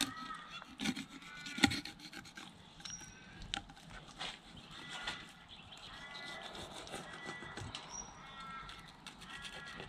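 A filleting knife working along the back of a large samson fish, with repeated rasping strokes and sharp clicks as the blade meets bone. The loudest click comes about one and a half seconds in.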